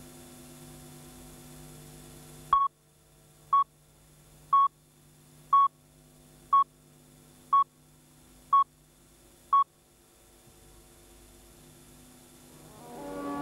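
Steady electrical hum, then eight short, identical beeps exactly once a second from a video countdown leader counting down from ten. Music fades in near the end.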